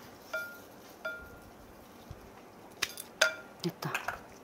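Glass mixing bowl clinking as it is knocked, each clink ringing briefly at the same clear tone: two in the first second or so and a third about three seconds in, among a few small clicks.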